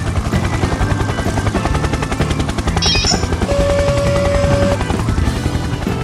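Cartoon helicopter sound effect: a rapid, steady rotor chop, over children's background music.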